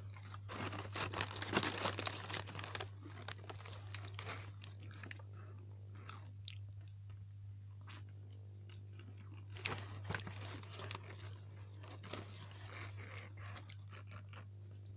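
Close-up eating sounds of a person biting into and chewing chicken wings, with crunching that is loudest in the first three seconds and comes again in bursts about ten and twelve seconds in.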